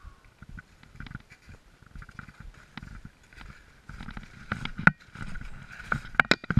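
Snowshoe footsteps crunching and thumping through snow, mixed with sharp clicks of trekking poles and snowshoe frames. The steps get louder about two-thirds of the way in, with a few sharp clicks near the end.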